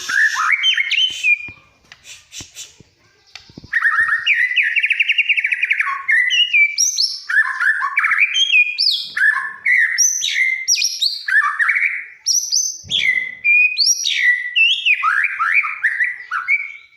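White-rumped shama (murai batu) in full song: a long, varied run of loud whistles, rapid trills and quick pitch glides, with a short lull about two seconds in before the song resumes without a break.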